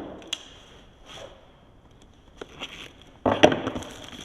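Packaging being handled and opened: scattered light clicks and short rustles, then a louder rustling scrape a little after three seconds in.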